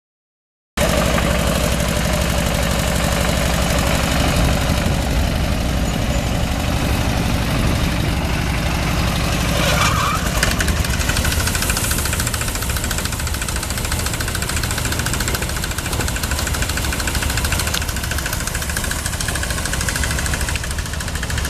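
Engine-driven rice threshing machine running steadily: the engine's fast, even chugging under the rattle and whirr of the threshing drum and fans.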